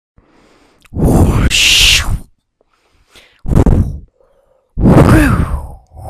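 A person's voice making three loud, breathy mouth sound effects, whooshes and groans. The first comes about a second in and has a hissy rush in the middle, and the last has a pitch that bends up and down.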